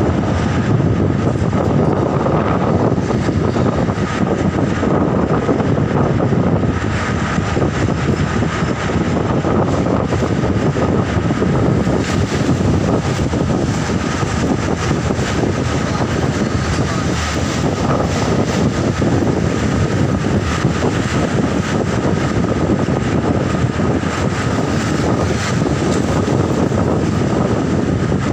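Steady drone of an airliner cabin in flight: engine and airflow noise with a thin, constant high tone over it, unchanging throughout.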